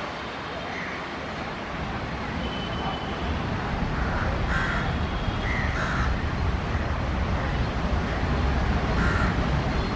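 A low rumble that builds steadily louder, with short bird calls breaking over it about five times.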